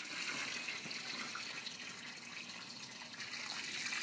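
Water from a garden hose spraying steadily into the shallow water of an inflatable paddling pool, a continuous splashing hiss.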